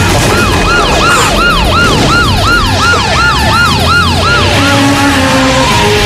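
Emergency-vehicle siren sound effect sweeping quickly up and down, about three sweeps a second, stopping a little past four seconds in.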